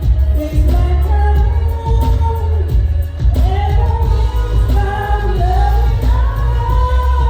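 Live R&B band music: a singer's voice over heavy bass, holding and sliding through long notes.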